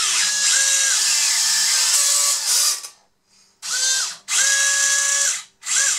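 Small high-speed electric motors and metal gearbox of a Huina 580 metal RC excavator whining in four bursts as the boom and stick are moved, each burst rising in pitch as it starts and falling as it stops; the first is the longest, the last is short, near the end. The arm motor with its worm drive runs uncovered, with no body fitted, and is the loudest.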